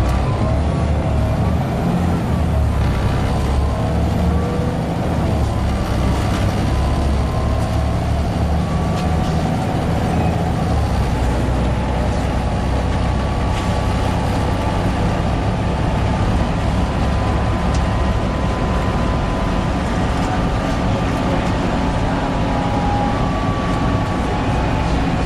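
Volvo B7TL bus engine running steadily, with a high whine that wavers and glides in pitch over the low rumble: the strange wailing noise this bus makes.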